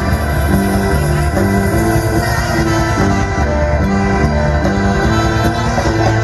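A live band playing loud through an outdoor stage sound system: a bass line stepping between held notes under guitar, with some singing.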